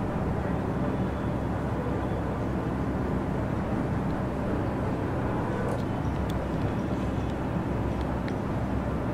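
Steady low rumble of outdoor city background noise, with a few faint ticks a little past halfway.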